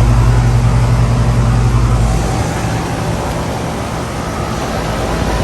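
Carrier Comfort Series heat pump outdoor units running: a steady compressor hum under the rush of the condenser fans. The deepest part of the hum drops away a little over two seconds in.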